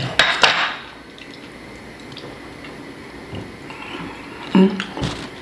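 Wet mouth sounds of eating curry and naan: chewing and lip smacks, a cluster of them in the first half-second and a few more near the end, with a short hum about four and a half seconds in.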